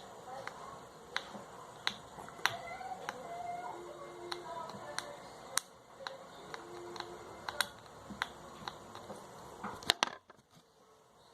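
Irregular sharp clicks and small taps as the parts of an LED bulb are worked by hand, trying to bend and join a contact strip where a burnt LED was pulled off. The clicking stops about ten seconds in.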